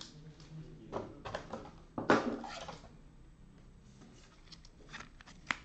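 Trading cards and hard plastic card holders being handled: scattered clicks and taps, with a louder rustling scrape about two seconds in and a sharp click near the end.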